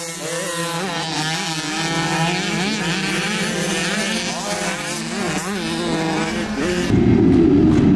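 Motocross dirt bikes racing, their engines revving up and down in pitch as they rise and fall through the gears. About a second before the end the sound cuts abruptly to a louder, rougher engine sound.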